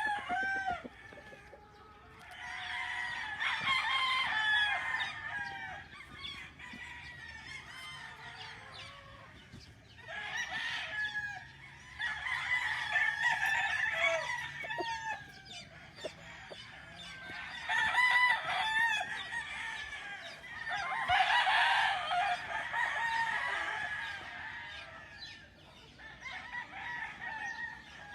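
Several roosters crowing one after another in long drawn-out crows of a few seconds each, with hens clucking between the crows.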